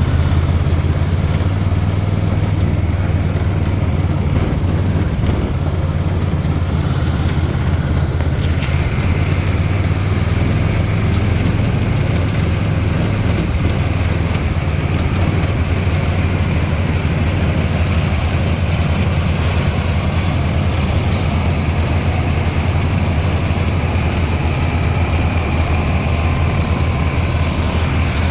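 Tractor engine running steadily under load during harvest, a low, even drone, with a faint higher whine joining about eight seconds in.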